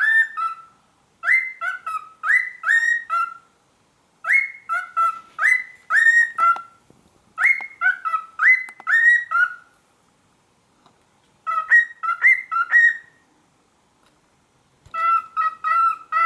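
Cockatiel whistling in repeated bursts of quick two-note whistles, each a rising high note dropping to a lower one, with short pauses between the bursts.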